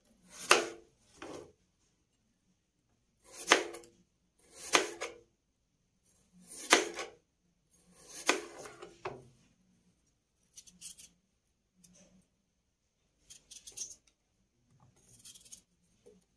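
Kitchen knife slicing peeled raw potatoes thin on a plastic cutting board, one cut every second or so. About seven cuts in the first ten seconds are louder, followed by four fainter ones.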